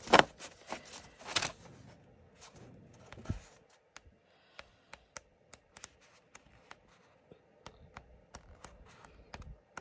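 A stack of 5x7 cardstock sheets being flipped through. A few louder rustles and taps come as the stack is handled at first. From about four seconds in there is a quick run of light, sharp flicks, about two or three a second, as card after card is let go.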